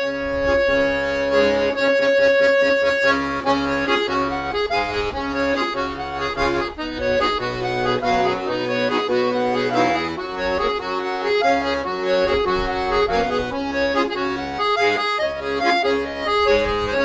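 Accordion (sanfona) music: a melody of held and moving notes over steady bass notes, with no singing.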